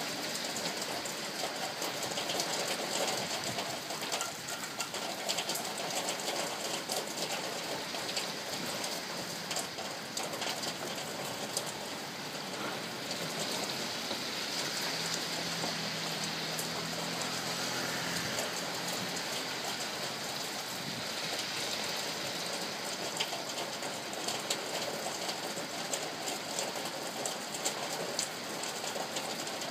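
Rain falling on an old tin roof: a steady wash of rain with many sharp, separate drop hits on the metal. About halfway through, a low steady hum comes in for a few seconds and fades.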